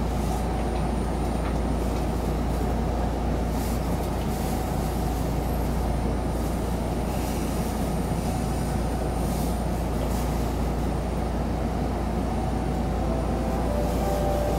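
Seibu 10000 series limited express electric train running at speed, heard from inside the passenger car: a steady rumble of wheels on rails and running gear, with a faint high steady tone.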